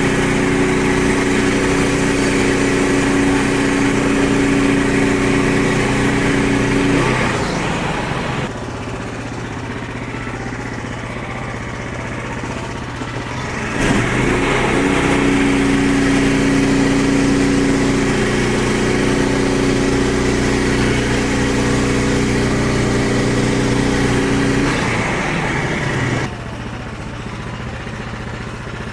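Frontier OS23 portable bandsaw mill's engine running at high speed, dropping to a lower idle about eight seconds in, revving back up about fourteen seconds in, and dropping again near the end.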